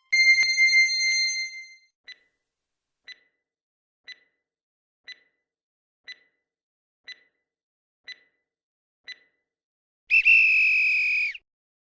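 Quiz countdown-timer sound effect: a bright chime fading over about two seconds, then a short tick once a second, eight times, ending in a loud alarm-like tone that lasts just over a second.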